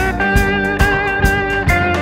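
Background music: guitar-led music over a steady beat.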